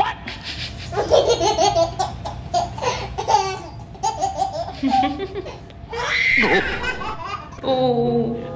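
A baby laughing hard in repeated bursts, with a high rising-and-falling squeal about six seconds in.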